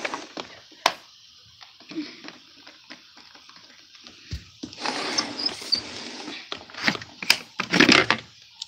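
Handling noises from a plastic upright vacuum cleaner with its motor off: scattered light clicks and knocks, with a stretch of rustling about five seconds in.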